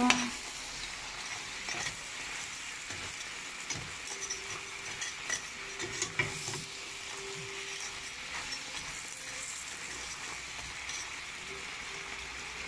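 Talangka (small crabs) frying in their own oil in a pan with a steady sizzle. A metal spoon stirs through them, clicking and scraping now and then against the shells and the pan. The crabs are cooked through and have given off their fat.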